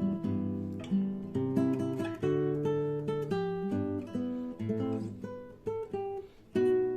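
Acoustic guitar playing chords, strummed and picked, each chord ringing out. It pauses briefly near the end before a loud new chord.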